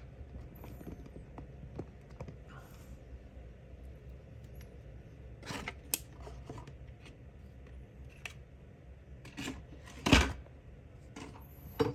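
Handling noise over a low room hum: scattered soft clicks and rubs, with a louder thump about ten seconds in.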